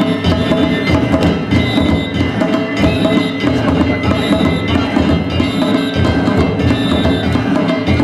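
Danjiri festival music: taiko drums and clanging kane hand gongs played in a steady, repeating rhythm, with gong strokes ringing out about once a second.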